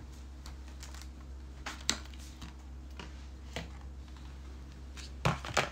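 Scattered light taps and clicks of household items being handled, then two sharper knocks near the end as things are set down on a table, over a steady low hum.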